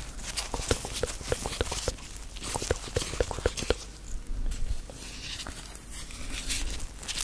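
White rubber gloves rubbing and clicking as gloved hands work close to a microphone: a quick run of small clicks, several a second, for the first few seconds, then softer rubbing with only a few clicks.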